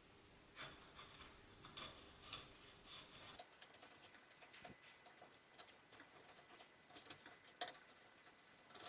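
Chisel paring the edge of plywood by hand: faint, irregular small clicks and scraping strokes as thin shavings are cut to straighten a broken edge.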